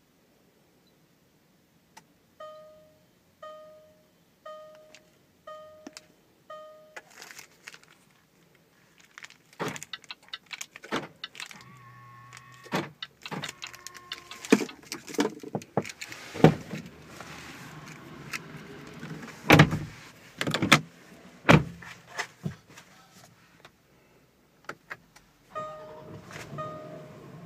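Land Rover Discovery 4 warning chime pinging about once a second, five times, then a run of knocks, clicks and rustling from handling the key and controls, and near the end the chime starts again, repeating a little faster, as the ignition comes on.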